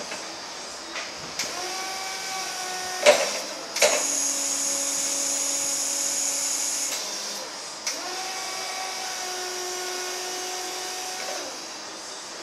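Hydraulic pump motor of a Crown electric forklift whining in three runs as the mast is raised and worked, the first and last rising in pitch as they start. Sharp clicks come as the runs start and stop, the loudest about three seconds in.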